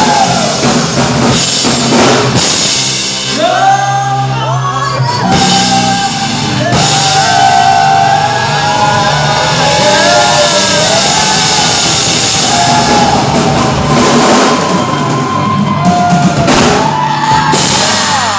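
Rock band playing live: a singer holding long, bending notes over a drum kit and guitars.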